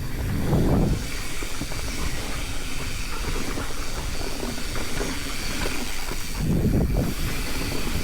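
Mountain bike rolling fast down a dusty, rocky singletrack: tyre and drivetrain rattle over dirt and rock under a steady rushing noise of wind over the microphone, with two louder surges, about half a second in and again shortly before the end.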